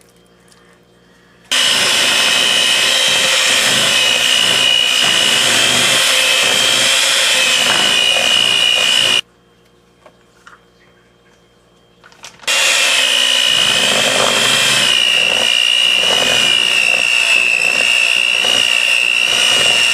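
Electric mixer beating buttercream frosting (butter, powdered sugar and milk), a steady motor whine. It switches on about a second and a half in, stops for about three seconds midway, then starts again and keeps running.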